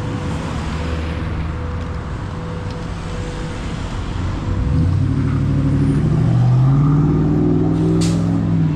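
Street traffic: motor vehicle engines running close by, one growing louder from about halfway through, its pitch rising a little as it pulls away.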